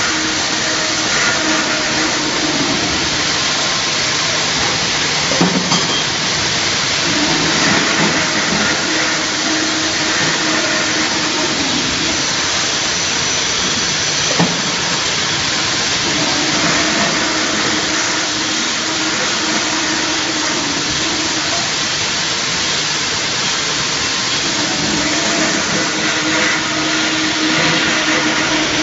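Automatic CNC circular-saw tube cutting machine running: a steady loud hiss with a low hum that comes and goes roughly every eight to nine seconds as it cycles, and two short knocks, one about five seconds in and one about fourteen seconds in.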